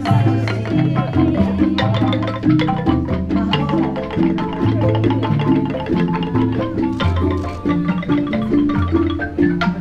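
Balinese rindik, a bamboo xylophone struck with mallets, playing a steady stream of short notes over lower ones.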